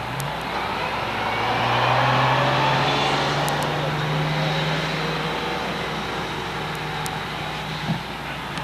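An engine running steadily. Its pitch steps up just after the start, and the noise swells about two seconds in before easing off.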